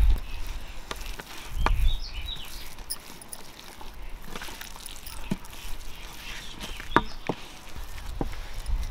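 Scattered light clicks and knocks of handling, with a short low rumble near the start and faint bird calls in the background.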